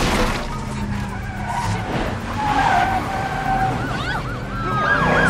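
Movie car-chase sound mix: a pickup truck's engine running hard with tyres skidding and squealing, opening with a sudden hit. Police sirens begin wailing about four seconds in.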